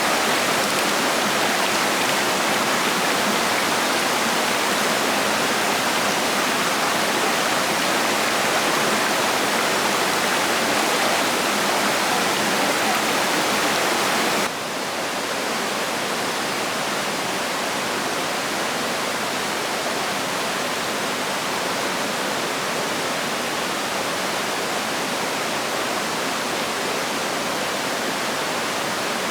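Steady rush of flowing water, a stream or small waterfall. About halfway through it cuts to a slightly quieter, duller rush.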